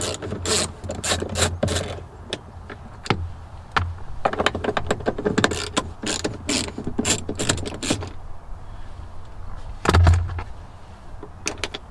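Ratchet wrench clicking in quick runs as two 10 mm bolts are backed out of a grab handle, with a heavier knock about ten seconds in.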